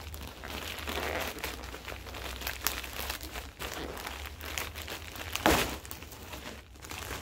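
White plastic bag crinkling and crackling as it is handled, with one sharper, louder crackle about five and a half seconds in, over a faint low hum.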